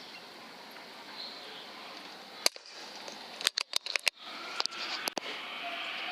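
An air rifle firing once with a sharp crack about two and a half seconds in, followed about a second later by a quick run of metallic clicks as the action is worked, and a couple more single clicks after, over a steady faint hiss.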